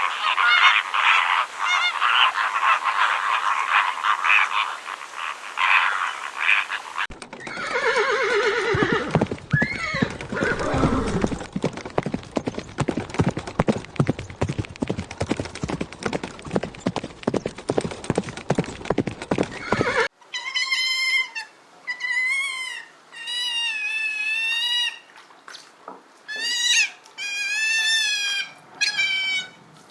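A flock of large birds honking for about the first seven seconds. Then a horse whinnies and its hooves beat in a fast, even rhythm. From about twenty seconds in comes a string of cat meows, each a wavering call.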